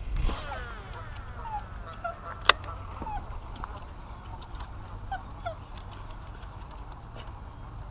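Baitcasting reel: a whine that falls in pitch over the first second, then one sharp click about two and a half seconds in, followed by the retrieve. Short high chirps are scattered over it.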